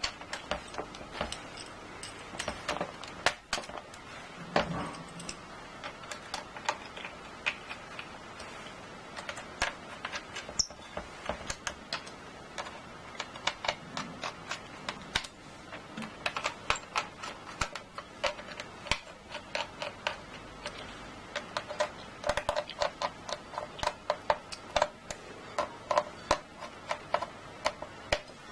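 Irregular small clicks and taps of hands working on a Dell Inspiron 1525 laptop during a RAM replacement, with runs of quick ticking in the second half.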